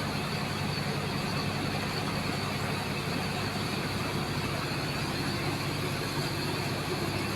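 Steady machinery noise: a constant engine-like drone under a broad rushing hiss, typical of a high-pressure water jet and its pump working into sand.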